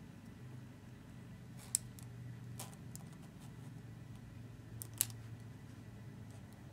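Metal hand tools clicking lightly against each other and the parchment as a paper flower's petals are shaped: two sharp clicks about three seconds apart with a few fainter ticks, over a faint steady low hum.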